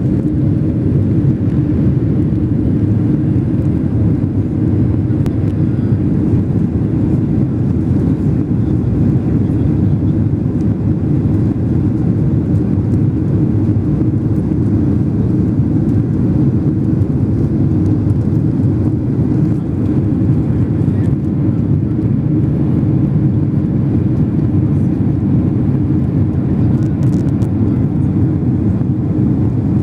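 Airliner cabin noise: a steady low rumble of the engines and the air rushing past the fuselage, heard from inside as the plane climbs away after takeoff.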